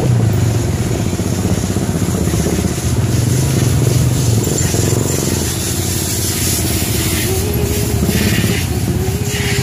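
Motorcycle engine running steadily on the move, with road and wind noise.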